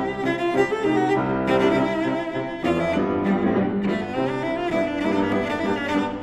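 Cello and grand piano playing classical chamber music together: the cello bows sustained, singing notes with vibrato over a running piano accompaniment.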